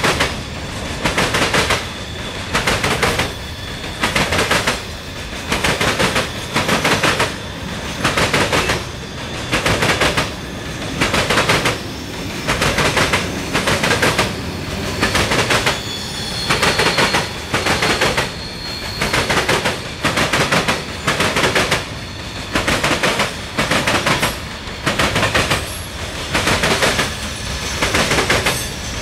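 CSX freight train cars rolling past close by, their wheels clacking over the rail joints in a steady rhythm. The clacks come in pairs, one pair about every two seconds as each car goes by.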